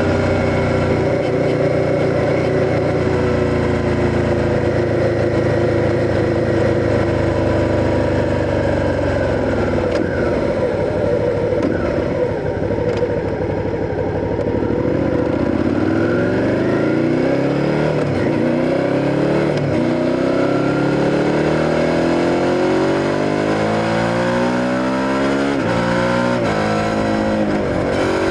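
Suzuki SV650's V-twin engine running under way. Its note holds fairly steady for the first half, then the revs climb and drop repeatedly through the second half.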